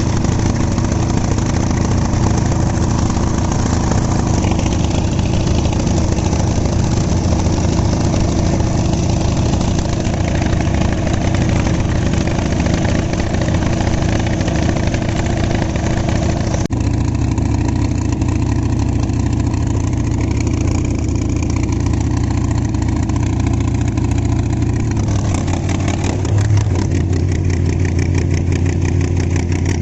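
A boat's engine running steadily, a low drone with a brief sudden break partway through and a change in its note near the end.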